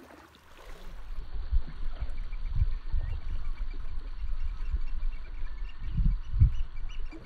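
Wind buffeting the microphone in a gusting low rumble, with gulls faintly and repeatedly calling above it.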